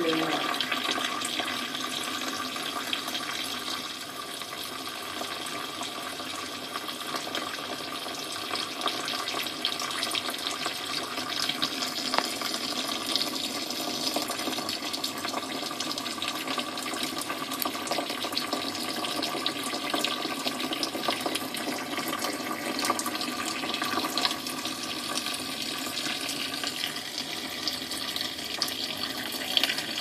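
Steady rain and running water, a continuous rushing with scattered small ticks, muffled by window glass.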